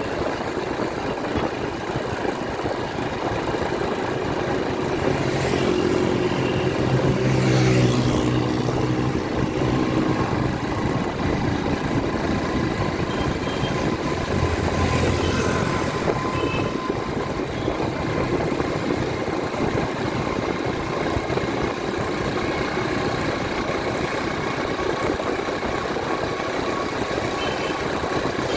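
Motorcycle ride through light city traffic: a steady mix of engine, wind and road noise, with other motorcycles and cars passing. An engine grows louder and peaks about eight seconds in, and another vehicle passes about halfway through.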